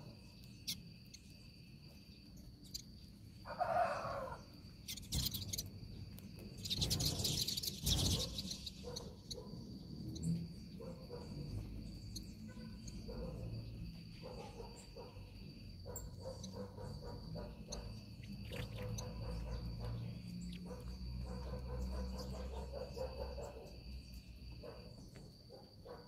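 A feeding flock of small birds, common waxbills and saffron finches among them, chirping over a steady high insect buzz. A loud rushing burst comes about seven seconds in.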